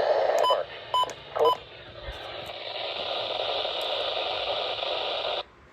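Radio receiver hissing with static, with three short electronic beeps about half a second apart near the start. The hiss cuts off abruptly near the end.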